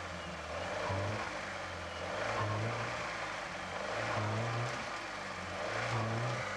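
UAZ-469 engine labouring in low gear through a deep rut, its note surging up about every second and a half as the throttle is worked, four times over.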